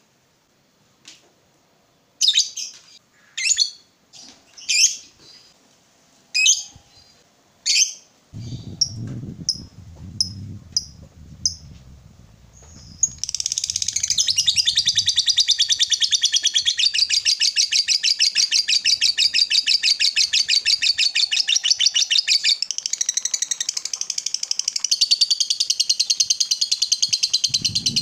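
Fischer's lovebird giving scattered sharp chirps, then about halfway through breaking into a long, unbroken rapid chatter, the 'ngekek panjang' that lovebird keepers prize as a sign of a bird in full song. A low rumble sits under the chirps for several seconds before the chatter starts.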